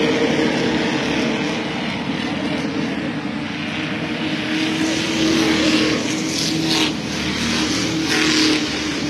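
A field of short-track stock cars running laps on an oval, a steady drone of many engines. The sound swells twice in the second half as cars pass close by.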